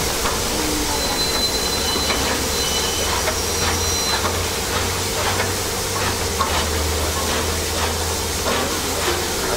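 DB class 23 steam locomotive 23 023 standing with steam hissing steadily, over a steady low hum and occasional light clicks.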